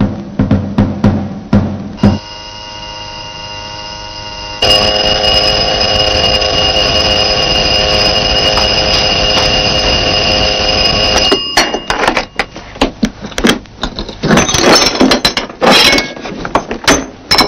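An electric doorbell rings continuously for about nine seconds, quieter at first and then loud, and stops abruptly. It is followed by irregular clicks and rattles of door bolts, locks and a chain being undone.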